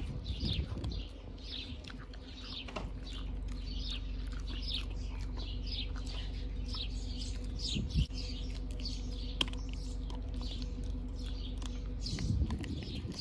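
A small bird chirping over and over, about one and a half short chirps a second, over a steady low hum. A dog crunches a dried beef chew strip briefly at the start and again near the end.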